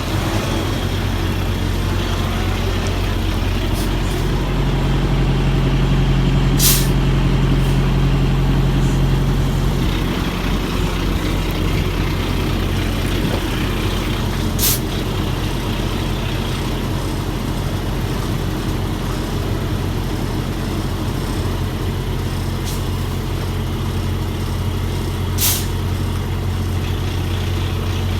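A semi-truck's diesel engine runs at low speed while the tractor-trailer is maneuvered in reverse. It picks up revs for several seconds early on, then settles back. Three short, sharp sounds cut through the engine at intervals.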